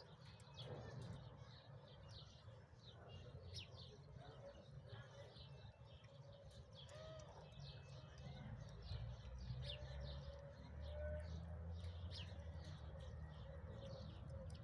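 Faint, rapid high-pitched chirping, many short calls close together throughout, over a low rumble.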